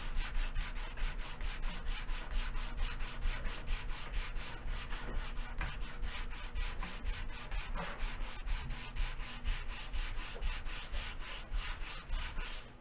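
Sanding block rubbed quickly back and forth along a thin wooden model-glider fuselage stick, a steady rasping at about four strokes a second that stops near the end.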